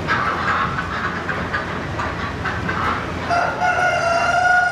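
A rooster crowing once: one long call that starts about three seconds in.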